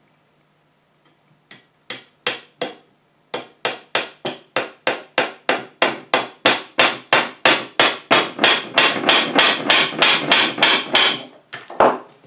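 Small hammer tapping a tack nail into the glued corner joint of a wooden picture frame: a few separate taps, then a long steady run of light, quick blows, about three or four a second, that stops shortly before the end.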